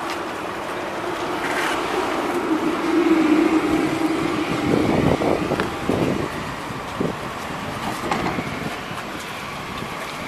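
Valmet MLNRV2 articulated tram pulling in to a stop. A steady whining tone from its drive is loudest about three seconds in, then several rattling knocks come around the middle as it slows. After that it runs quieter as it stands.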